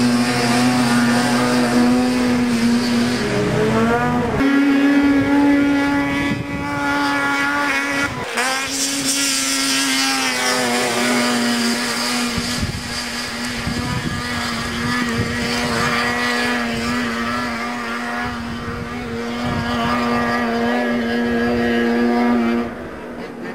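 Snowmobile engine running hard at high revs, holding a steady pitch as the sled climbs. It steps up in pitch about four seconds in, dips briefly about eight seconds in, and cuts off suddenly near the end.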